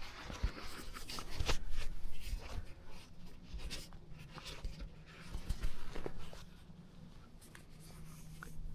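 Scratchy rustling and scraping with a few soft knocks: clothing and gear rubbing against a body-worn action camera as the hunter moves and handles his stand, in two louder spells.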